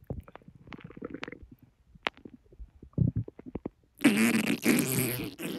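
Stomach and intestinal gurgling in a bloated, overfull belly: scattered short pops and squelches, then about four seconds in a loud, long gurgle with a warbling, squeaky pitch, the sound of gas and food being squeezed along the gut during digestion.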